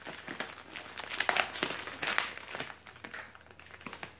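Plastic postal mailer envelope crinkling in irregular bursts as it is pulled at and cut open with a knife.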